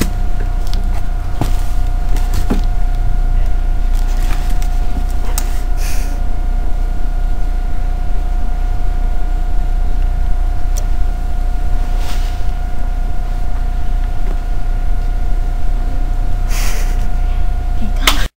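A loud, steady low hum with a constant high tone, typical of camcorder recording noise, with three short sniffs about six, twelve and seventeen seconds in as a boy snorts at a book held to his face. The sound cuts off suddenly near the end.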